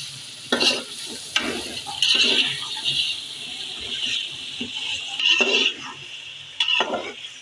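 Raw chicken pieces sizzling in hot oil in a large metal pot while a steel slotted spoon stirs them, scraping against the pot about five times over a steady frying hiss.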